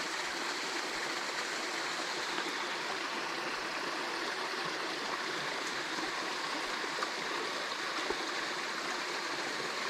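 Small forest waterfall splashing and the stream rushing steadily.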